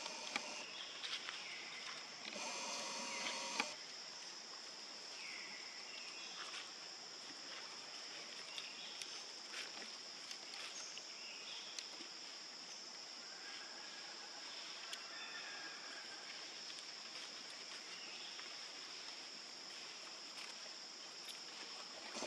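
Steady high insect drone in tropical forest. A macaque gives drawn-out pitched calls near the start, then sparse short chirps and clicks follow.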